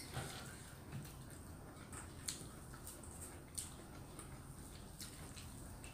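Faint eating sounds: a handful of soft, irregularly spaced clicks and smacks from chewing and from fingers working food in a stainless steel bowl.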